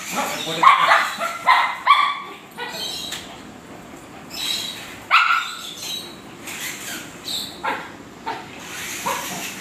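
Small dog barking repeatedly in short, high barks: a quick run of barks at first, then scattered barks about halfway through and again near the end.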